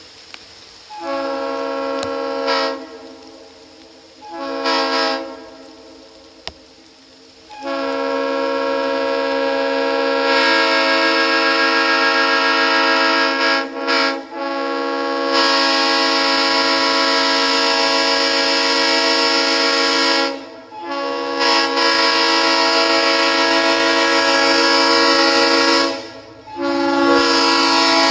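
Ex-Conrail Leslie Supertyfon RS3L three-chime locomotive air horn, with original diaphragms and early-80s New Jersey power chambers, sounding its steady chord. Two short blasts come first, then long held blasts from about eight seconds in, broken by three brief gaps.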